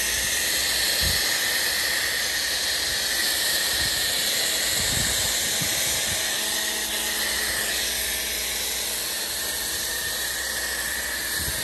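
Pressure washer foam cannon spraying thick snow foam onto a car's body panels, a steady hiss of spray.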